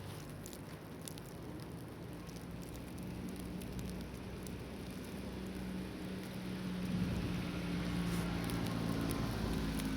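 Steady hiss of a blizzard, wind-blown snow, with a vehicle engine's low hum growing louder over the second half.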